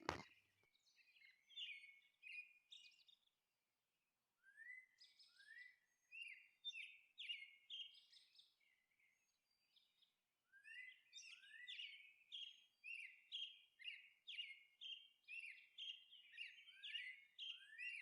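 Faint bird chirping: short, high chirps, some sliding up in pitch. They are scattered at first, then after a short pause about halfway through they repeat steadily, about two a second.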